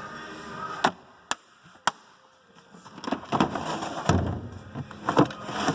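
Hand tools and metal parts being handled in a tool box drawer: three sharp clicks in the first two seconds, then a busier run of rattling and knocks.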